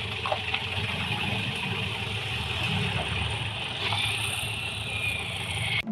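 Pickup truck engine idling steadily, a low rumble, with a steady high-pitched buzz above it.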